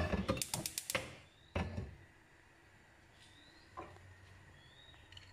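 A nonstick frying pan set onto a gas stove: a quick run of clicks and knocks in the first second or so, another knock shortly after, then quiet.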